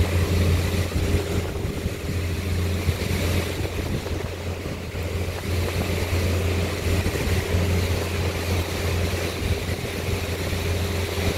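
A steady low hum with an even rushing, wind-like noise over it, unchanging throughout.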